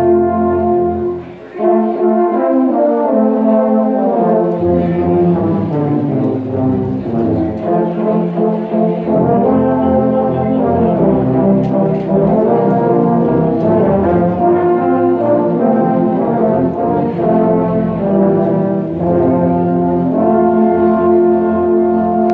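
Ensemble of tubas and euphoniums playing in harmony, with a short break for breath about a second and a half in and a long held chord near the end.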